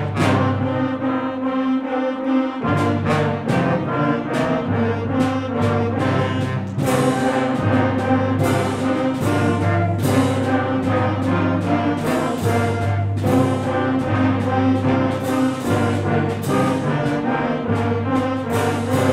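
Junior high concert band playing: held brass chords over a steady low bass line, with repeated percussion strikes throughout.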